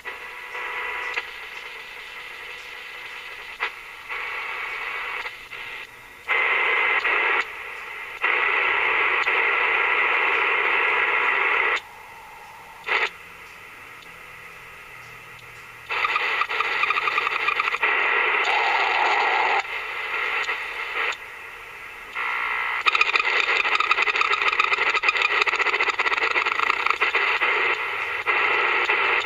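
Static and noise hiss from a Vogurtime AM-FM kit radio's speaker as the AM tuning dial is turned. The hiss cuts in and out abruptly as the dial moves, with a brief whistle near the middle and no clear station. The builder puts the poor AM reception down to RF interference from the shop's equipment.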